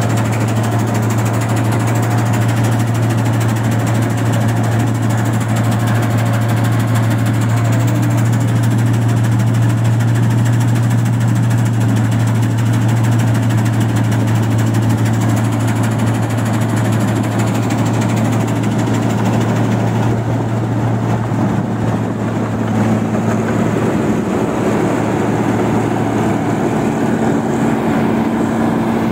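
New Holland 1545 combine harvester running steadily while cutting rice: a steady diesel drone mixed with the clatter of the header and threshing machinery. The low hum eases about two-thirds of the way through as the machine moves past, and a higher steady tone takes over.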